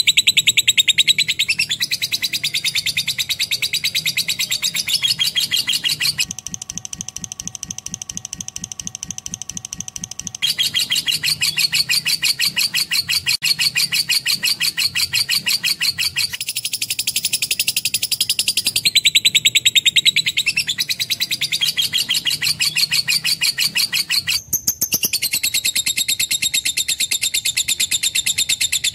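Lovebird singing a long, unbroken chattering song: a rapid stream of high, shrill chirps many times a second. The song turns quieter and lower for a few seconds about a quarter of the way in, and breaks off briefly near the end.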